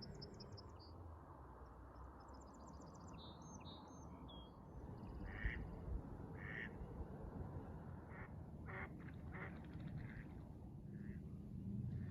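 Ducks quacking several times, with small songbirds singing high trills and chirps in the first few seconds, over a steady low background. A low, steady drone sets in near the end.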